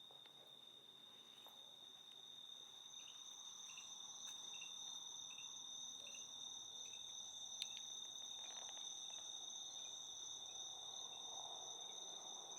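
Night insects trilling steadily at two high pitches, with fainter short chirps repeating about twice a second beneath them. The chorus grows louder over the first few seconds, and a single sharp click sounds about seven and a half seconds in.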